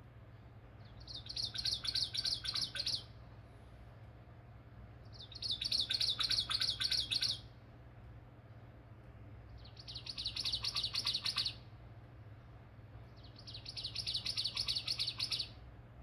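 Recorded ovenbird song played from a nature exhibit's sound display: four songs about four seconds apart. Each is a quick run of repeated chirping notes that grows louder over about two seconds. A low steady hum runs underneath.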